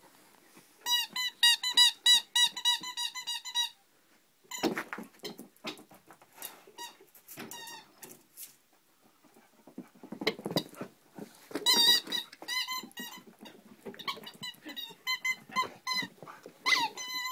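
A dog's squeaky toy being bitten, squeaking in quick runs of about four short squeaks a second, ending with one longer squeak. There are noisy scuffling stretches between the runs.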